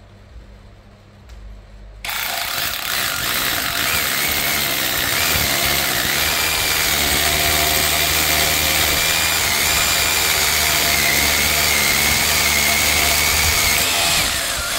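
Worx cordless mini rotary hammer drilling a 10 mm hole into concrete. It starts suddenly about two seconds in and runs steadily with a high whine over the hammering, then stops at the end, having drilled the hole without trouble.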